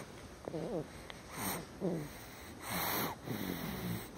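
Snoring: quick, wheezy sleeping breaths about every second and a half. Each breath has a noisy snort, and short falling whistle-like tones come between them. The loudest snort comes about three seconds in.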